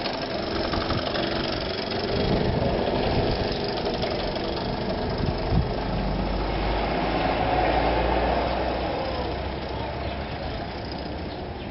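VéloSoleX 5000's small two-stroke engine running on its first run after an engine rebuild, as the moped is ridden past and away, the sound fading over the last few seconds. A single short knock about five and a half seconds in.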